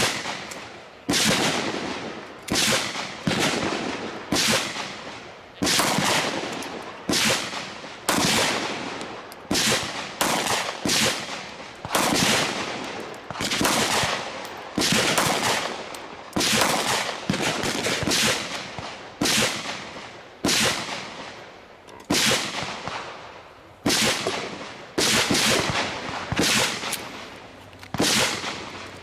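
Dozens of single gunshots from a semi-automatic firearm, fired one after another at roughly one to two shots a second, some in quick pairs. Each is a sharp crack that dies away in a short echo.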